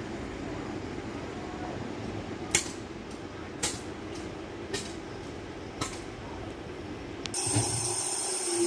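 West Midlands Railway Class 323 electric multiple unit approaching along the line and running in beside the platform, its noise swelling into a loud hiss and rumble near the end. Before that there is steady background noise with four sharp clicks about a second apart.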